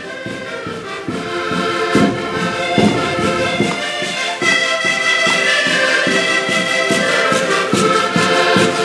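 A group of Portuguese concertinas (diatonic button accordions) playing a lively traditional tune together while marching, with a steady pulsing bass beat under the melody. The music grows louder over the first few seconds as the players approach.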